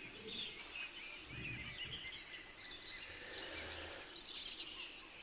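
Faint background ambience with small birds chirping softly and intermittently.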